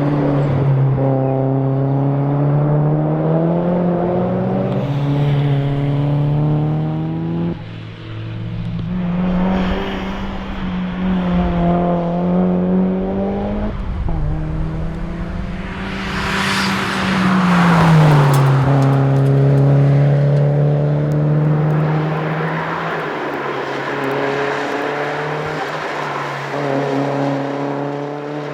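Turbocharged Mazda MX-5 SE four-cylinder engine at full throttle on a tarmac rally stage. The revs climb and fall through repeated gear changes, with sharp lifts about seven and fourteen seconds in. Around two thirds of the way through there is a loud rushing noise as the revs fall.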